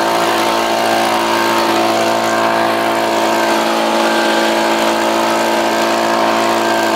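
Cordless electric leaf blower running steadily, a constant whine over rushing air.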